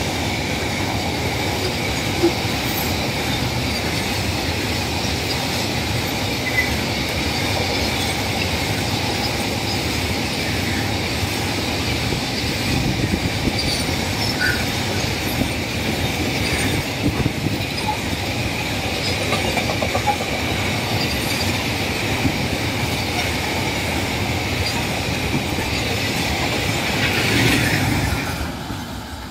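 Container train's wagons rolling past at speed: a steady rumble and clatter of wheels on rail with a high ringing squeal. The sound swells briefly near the end, then dies away as the last wagons go by.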